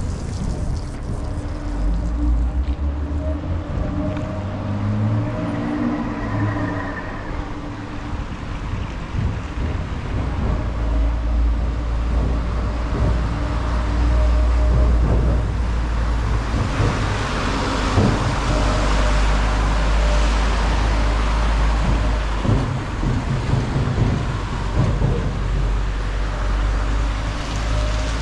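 City street traffic: cars running past with engine rumble and tyre noise. One vehicle passes close for several seconds past the middle.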